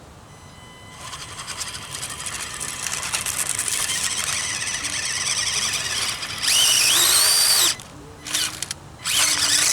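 Axial SCX24 micro crawler's small electric motor and drivetrain whining as it strains up a steep rock, building up from about a second in. Near the end come two loud full-throttle bursts, the pitch swinging up and down.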